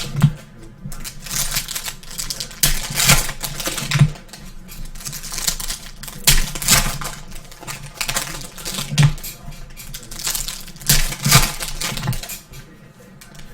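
Football trading cards being handled and flipped through: irregular clicks, taps and light slaps of card stock.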